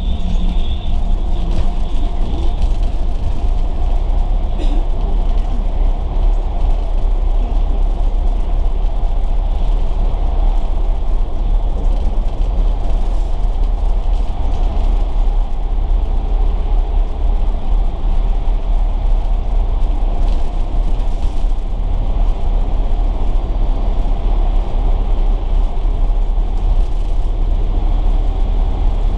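Volvo B9TL double-decker bus under way, its six-cylinder Volvo D9B diesel engine and road noise making a steady low rumble.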